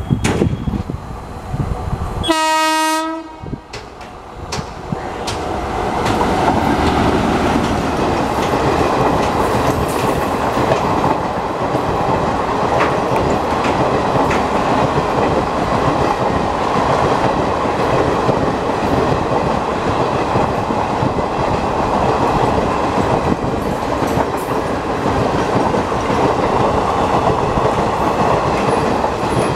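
An electric locomotive's horn sounds one blast of about a second, roughly two seconds in. From about five seconds in, the passenger coaches pass close by at speed, with a steady loud rumble and the clickety-clack of their wheels over the rail joints.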